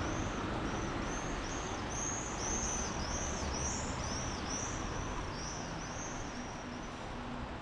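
A small bird calling a fast run of high, arching chirps, about two or three a second, that fades out near the end, over a steady hiss of rain and city background noise.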